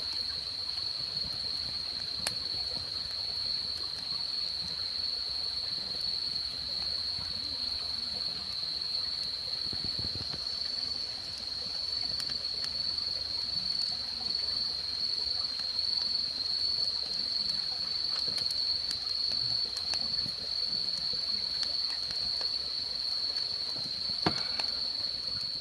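Crickets chirring in a steady, high, continuous chorus, with a couple of faint clicks, one about two seconds in and one near the end.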